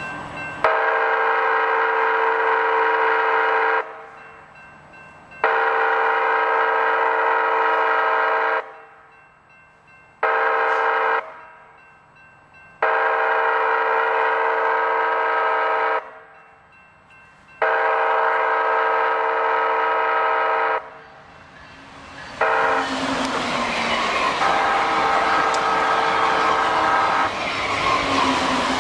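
Siemens SC-44 Charger locomotive's air horn sounding a chord in the grade-crossing pattern: two long blasts, a short one, then further long blasts. During the last blast the train passes at speed with a loud rush of wheel and air noise, and the horn sounds again over it.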